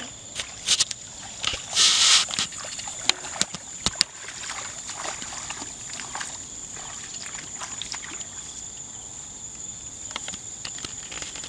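A steady high-pitched drone of field insects, with short noisy rustles and a few sharp clicks during the first four seconds as people push through tall rice plants.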